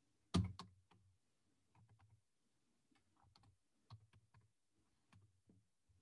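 Typing on a computer keyboard: a louder knock just after the start, then scattered faint keystrokes.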